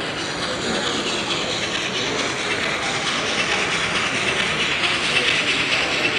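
HO-scale model steam locomotive and its wagons running steadily along the layout's track, against a steady background of hall noise. The running sound gets a little louder in the second half.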